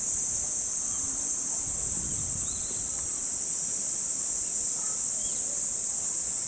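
A chorus of cicadas droning steadily in one high-pitched, unbroken buzz.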